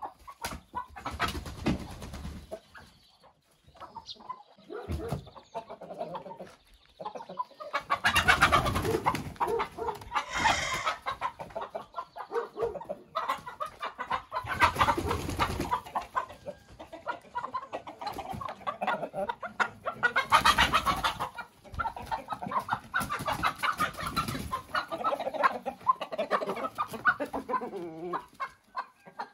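A flock of hens and roosters clucking and calling throughout, with several louder stretches of a second or two.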